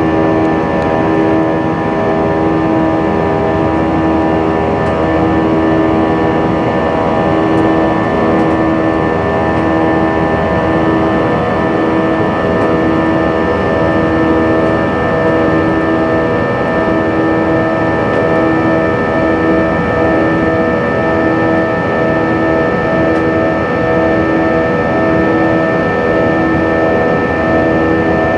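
Airliner engines heard from inside the passenger cabin during the climb after takeoff: a steady, loud drone with several held tones, some of which pulse slowly about once a second.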